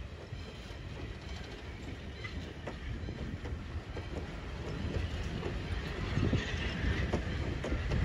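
Riveted steel passenger coaches rolling past on their trucks, with a steady low rumble and scattered clicking of wheels over rail joints. The sound grows louder over the last couple of seconds.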